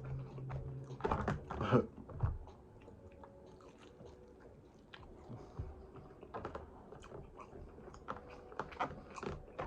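A person chewing and biting food: irregular wet mouth clicks and smacks, with a louder run of chewing between about one and two and a half seconds in, then scattered clicks.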